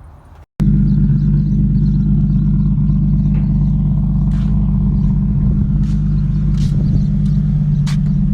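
2004 Infiniti G35 sedan's 3.5-litre V6 idling steadily through headers, test pipes and a single-exit muffler. It comes in abruptly about half a second in and stays loud and even, with a few faint clicks.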